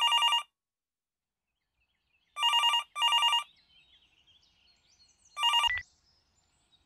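Smartphone playing an old-style telephone-bell ringtone, trilled rings in pairs: a ring at the start, a double ring about two and a half seconds in, then a last ring cut short after about five and a half seconds as the call is answered, with a soft knock. Faint handling rustle between the rings.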